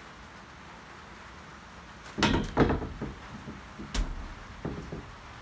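A quick cluster of knocks and thumps about two seconds in, one sharp knock about four seconds in, then a few fainter knocks.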